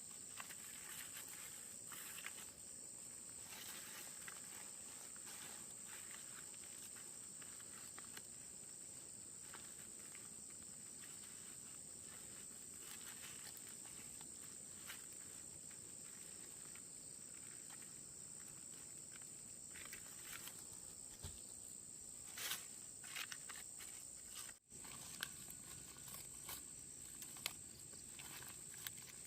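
Insects droning steadily at one high pitch, with scattered light clicks and rustles.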